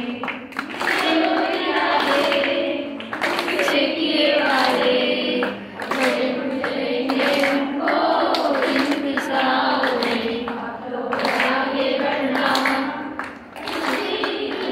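A group of women singing a song together in unison, in sung phrases with held notes and short breaths between lines.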